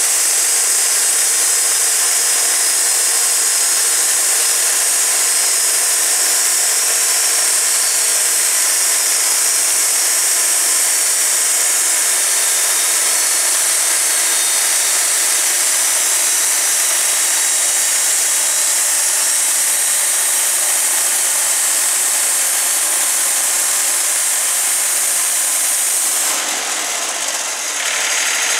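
Wood-Mizer LT40 portable band sawmill sawing a cottonwood log, a loud steady high-pitched sawing hiss. Near the end, as the head reaches the end of the log, the sound dips and changes briefly, then carries on.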